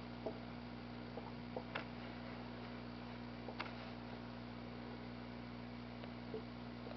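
Steady low electrical hum with a few faint, short ticks scattered through it, mostly in the first few seconds.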